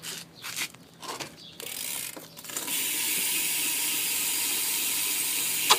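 Rear hub of a BMX bike, a Primo hub, ratcheting as the back wheel is spun: a few scattered clicks, then from about two and a half seconds a fast, steady buzz of pawl clicks, cut off by a sharp knock near the end.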